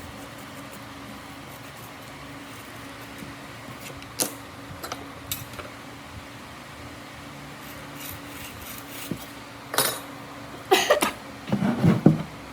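Scattered knocks and clattering of hard objects being handled over a steady fan-like hum, with a louder flurry of clatter near the end.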